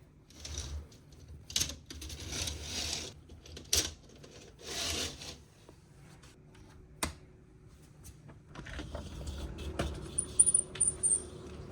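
Handling noises: irregular rustling and sharp clicks of small objects being moved, with a few short, high metallic tinkles near the end.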